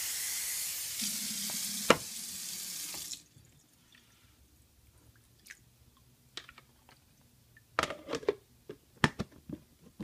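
Tap water running into a plastic container of soaking sea moss, stopping about three seconds in. Then a few light plastic clicks and knocks as the container's lid is put on.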